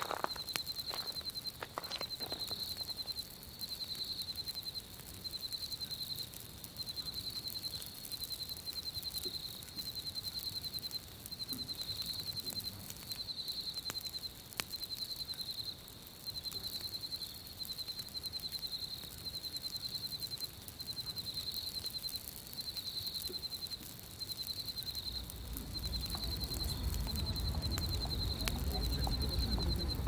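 Campfire crackling with sparse faint pops, under a high chirping that repeats in short trills about once a second. Near the end a low rush of wind swells up.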